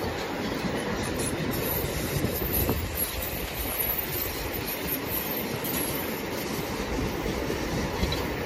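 A loaded narrow-gauge sugarcane train's bins rolling past, a steady running noise of steel wheels on rail.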